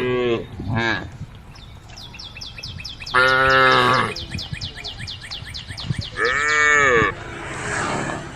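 Cattle mooing to one another. One call ends just after the start, a short one follows about a second in, a long loud one comes about three seconds in, and another arrives around six seconds. A fast, even, high-pitched chirping runs behind the middle calls.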